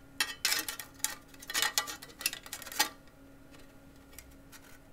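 Clicks and light rattling as a PC Engines APU2E4 circuit board is slid into its red metal case and the case is handled, a busy run of sharp clicks over the first three seconds.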